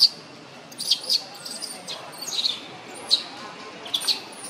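Newborn macaque crying: a string of short, high-pitched squeals, each falling in pitch, coming about once or twice a second.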